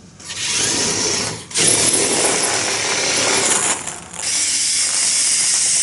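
Electric motors and gear train of a small student-built robot bulldozer running in three runs, with brief stops about one and a half and four seconds in.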